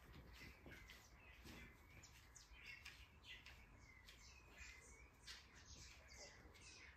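Faint birdsong: many short chirps scattered throughout, over a faint low hum.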